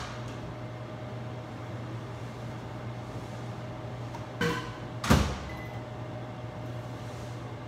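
Two short knocks about half a second apart, a little past the middle, the second louder and ringing briefly, over a steady low hum.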